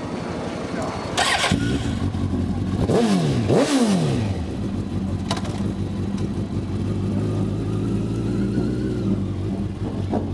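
Suzuki GSX-R sportbike's inline-four engine starts about a second in, is blipped twice in quick succession so the revs shoot up and fall back, then idles steadily.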